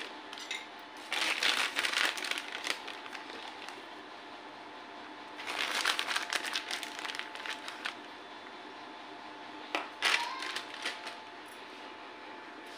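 Plastic bag crinkling in two longer bursts and a short one near the end as cornflour is taken from it and tipped into a bowl, over a faint steady hum.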